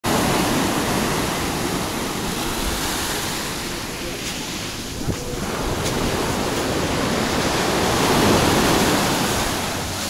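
Sea surf breaking and washing up a sandy beach, the wash swelling and easing, loudest a little past the middle of the stretch.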